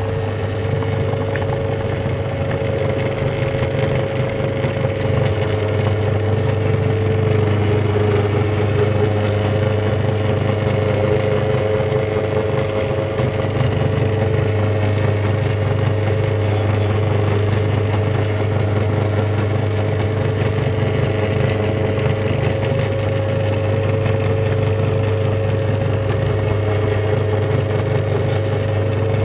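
A belt-driven meat grinder running steadily: a constant low motor hum with a steady higher whine, as its auger grinds sugar-coated candy balls and pushes them out through the plate.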